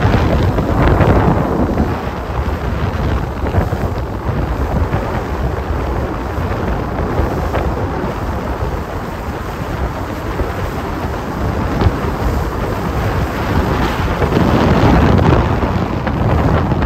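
Wind buffeting the microphone on a boat under way at sea, with water rushing past the hull: a steady, loud, rough noise that swells about a second in and again near the end.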